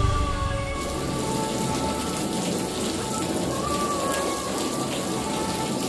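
Water from a hose spray nozzle spattering steadily onto a flat painted panel, a continuous rain-like hiss.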